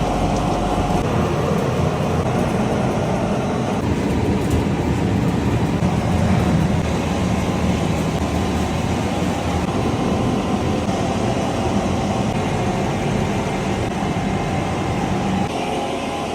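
Olive oil mill machinery running with a steady, continuous mechanical rumble and hum.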